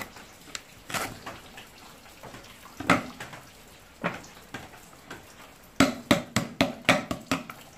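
Cleaver chopping lemongrass stalks on a round chopping board: a few single chops, then a quick run of about ten chops near the end. A tap runs steadily into a steel sink underneath.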